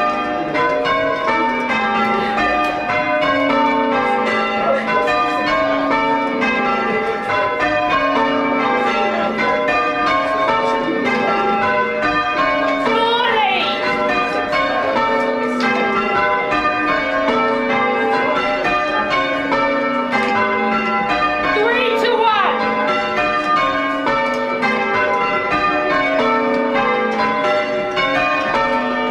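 Church bells being rung in changes: a continuous, even run of bell strikes in rotating order, heard from the ringing chamber below the bells as the ringers pull the ropes.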